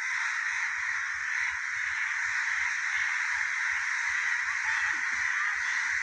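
A steady, dense din of many crows cawing together, with no single call standing out.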